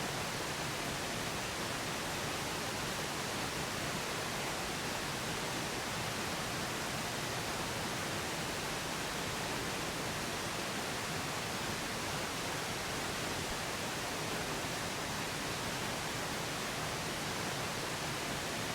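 Steady pink noise: an even, unchanging hiss.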